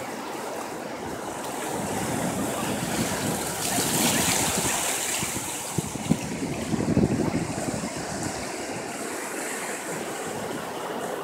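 Ocean surf washing in over a lava-rock beach: a steady rush of breaking waves that swells to a louder hiss about four seconds in. Gusty low rumbling from wind on the microphone is loudest between about six and seven and a half seconds in.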